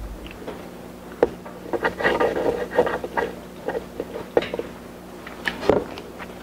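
Wooden chopsticks clicking against a wooden board and prodding a sauce-soaked, chili-crusted fried dumpling. They tear and lift it with wet, crackly squishing, and there are a few sharp taps, the loudest near the end.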